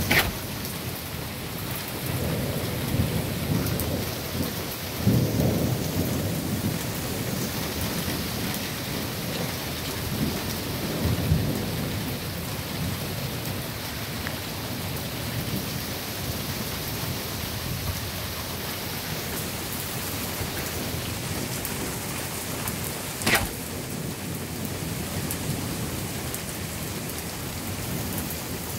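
Steady rain during a thunderstorm, with low rolling thunder rumbling several times in the first half. A single sharp knock comes about twenty-three seconds in.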